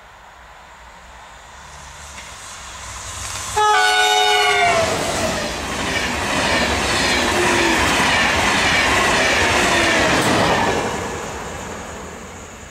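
TGV Duplex high-speed train approaching and passing at speed. It sounds one short horn blast about three and a half seconds in, its pitch bending down as it arrives, then the rush of the double-deck trainset going by, fading near the end.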